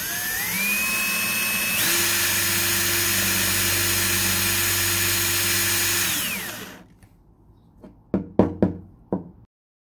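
Cordless drill running as a twist bit bores into 3D printed plastic parts. The motor whine rises as it spins up, steps up about two seconds in, and runs steadily. It winds down with a falling pitch at about six and a half seconds. A few short knocks follow near the end.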